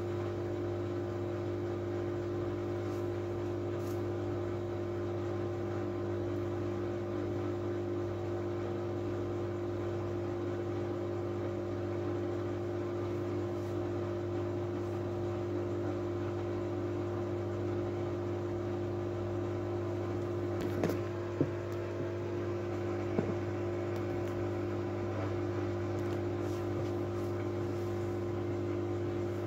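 Miele W433S washing machine running with a steady motor hum. A couple of brief knocks come past the middle.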